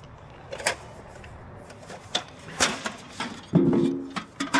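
Hard parts and packaging being handled: a series of separate clicks and knocks, with a short squeaky scrape about three and a half seconds in.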